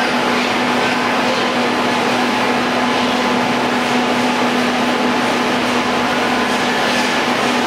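Detachable chairlift running: a steady mechanical hum under an even, loud rush of noise, with no break or change.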